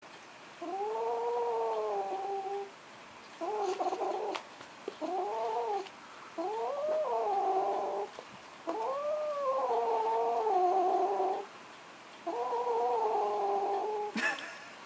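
A kitten growling at a blanket: six drawn-out, wavering growls, each one to two and a half seconds long with short pauses between. A short noisy burst comes near the end.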